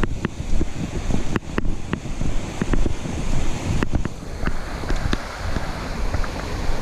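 A chest-strap-mounted GoPro jostling with each walking step on a dirt trail: low rumbling wind and handling noise on the microphone, broken by irregular sharp clicks and knocks from the camera and its clip, over a steady rush of creek water.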